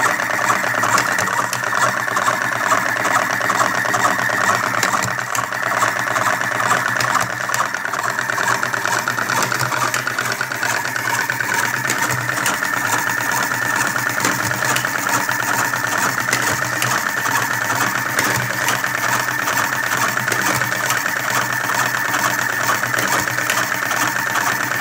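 Electric 12-volt cigarette tube-filling machine, lever-operated and hopper-fed, running steadily: its small motor whirs with a fast, even mechanical rattle as it fills tubes.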